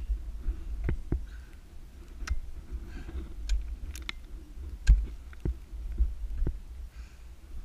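Ice axes striking and biting into glacier ice during a climb: about ten sharp, irregular strikes, the loudest about five seconds in, over a steady low rumble.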